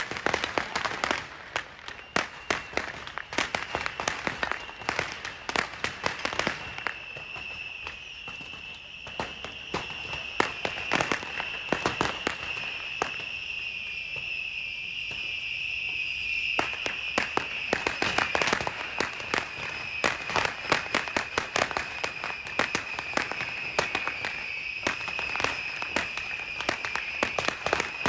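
Beehive firework rockets going off en masse: a dense, irregular barrage of cracks and bangs. From about six seconds in, a steady high whistle from the swarm of rockets joins in and continues under the cracking.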